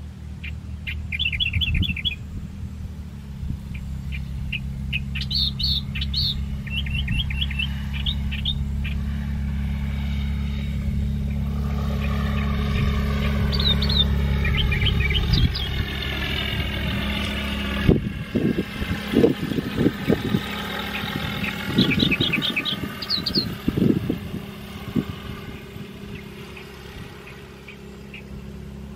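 Propeller engine of a high-wing light aircraft droning as it runs along the runway and takes off past, swelling to its loudest about halfway through and then fading away. Birds chirp in short, quick trills over it.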